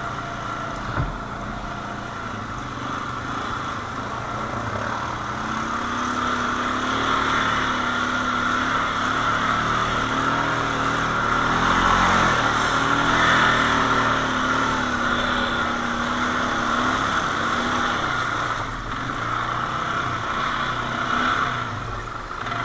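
Quad bike (ATV) engine running, growing louder toward the middle and easing off again, with a short knock about a second in.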